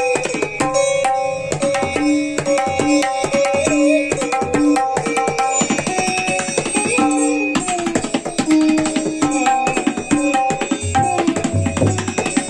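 Tabla, the pair of dayan and bayan, played with both hands in a fast, rolling 'dhir dhir' chalan composition in teentaal. The right drum rings at a steady pitch, and the deep bass strokes of the left drum come in more strongly near the end.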